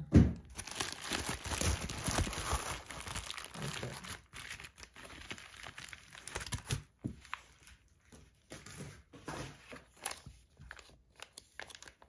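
Bubble wrap and thin plastic bags crinkling and rustling as a package is unwrapped by hand. The sound is densest in the first few seconds, then thins to scattered crinkles and light clicks.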